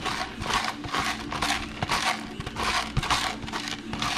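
Hand pepper grinder crunching Tellicherry black peppercorns, twisted back and forth in a steady run of short grinding strokes, about two to three a second.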